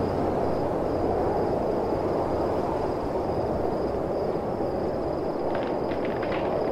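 Steady outdoor night ambience: a low, even rumbling hiss with a thin, high-pitched trill running through it, like night insects. A few soft footsteps come near the end.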